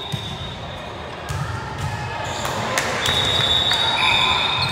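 Indoor volleyball: a few sharp ball hits about two to three seconds in, then a long, high referee's whistle blast from about three seconds in, with a second, lower whistle overlapping near the end, echoing in the gym.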